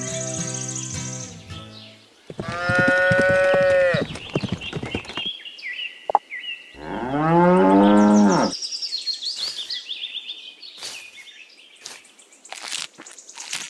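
Cattle mooing: two long moos, the first higher-pitched starting about two seconds in, and a deeper one about seven seconds in.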